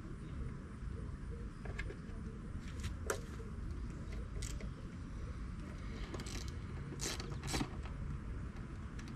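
Hand tool clicking and clinking against metal as bolts are worked on top of a Ford 302 V8 engine on an engine stand. About half a dozen short, sharp clinks are spread through, the loudest about three seconds in, over a steady low rumble.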